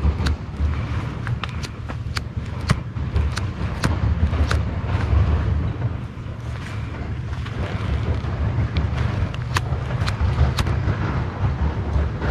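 Low, steady rumble of wind buffeting the microphone, with many short, sharp clicks scattered throughout.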